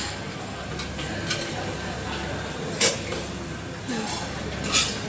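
Utensils clinking against buffet serving trays and a plate as food is dished up: a few light clicks, with a sharper clink about three seconds in and another near the end, over a steady background hum.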